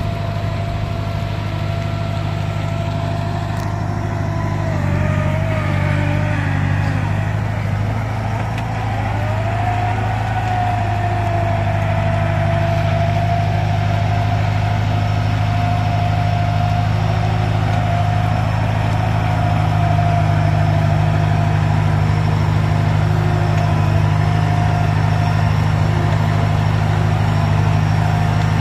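Diesel engine of a Kubota DC70 combine harvester running steadily at idle, its note wavering briefly about eight to ten seconds in.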